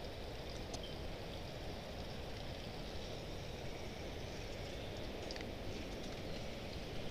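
Faint, steady outdoor background noise with a few light clicks.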